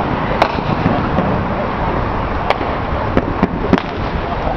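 Fireworks bursting: a sharp bang about half a second in, then a quick run of bangs between about two and a half and four seconds in, over a steady noisy background.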